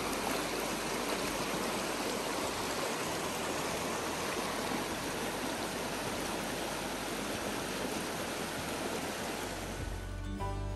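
Steady rush of flowing water, which cuts off abruptly near the end as music comes in.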